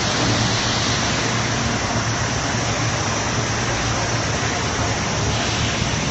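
Industrial machinery running steadily: a loud, even hiss over a constant low hum.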